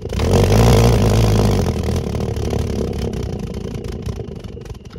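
Homemade valveless jam jar pulse jet, a small glass mason jar with a 14 mm hole in its lid, lighting suddenly and running with a loud, low buzz that eases off gradually as it burns.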